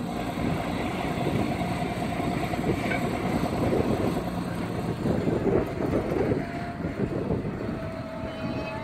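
Tractor engine running under load while a tipping trailer, its body raised, dumps sugar beet onto a pile, the beets sliding off in a continuous rough rumble. A steady whine comes in from about six and a half seconds.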